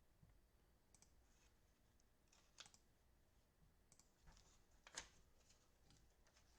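Near silence: room tone with a few faint scattered clicks, the loudest about five seconds in.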